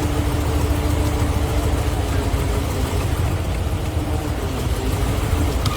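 Heavy construction machine's engine running steadily, a constant low rumble with a faint steady hum.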